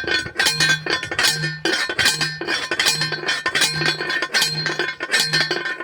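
Metal striking metal over and over in an even rhythm, about one ringing clink every three-quarters of a second, with a short low hum between the strikes.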